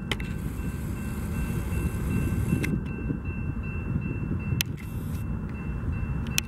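A steady low rumble, with a faint steady high-pitched tone above it and a few sharp clicks at irregular moments.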